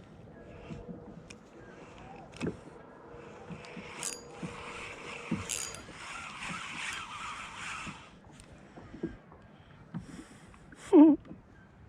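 Scattered knocks and rattles of handling on a fishing kayak, with a few seconds of splashing water or hiss in the middle. Near the end there is a short, loud, wavering pitched sound.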